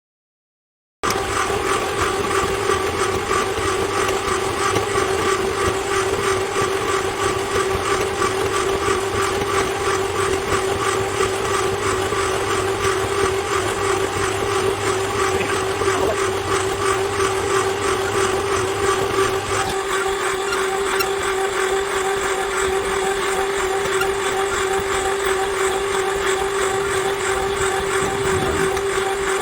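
Electric cable-stripping machine running steadily as it pulls earth cable in off a drum and strips it: a steady motor whine with a held pitch. A lower hum drops out about two-thirds of the way through.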